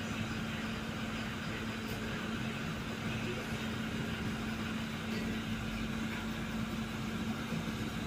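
Mt. Edma Tornado 54-inch ceiling fan running steadily, its motor giving a low, even hum under the room's background noise.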